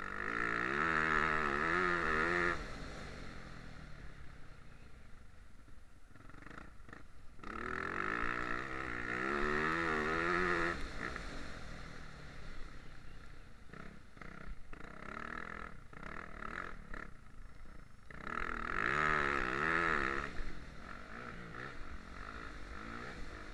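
Motocross bike engine revving hard under throttle in three long bursts, its pitch warbling up and down. Between the bursts it drops back to a lower, quieter note as the throttle is shut off.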